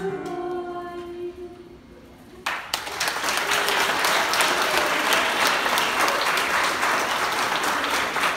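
The last held notes of a song sung by two girls into microphones fade out, then the room breaks into applause about two and a half seconds in, which carries on steadily.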